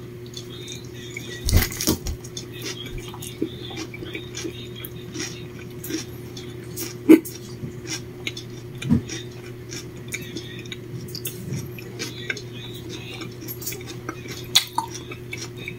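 Light clicks, clinks and taps of a plate and utensils being handled while someone eats a sandwich, with a few louder knocks, over a steady low hum.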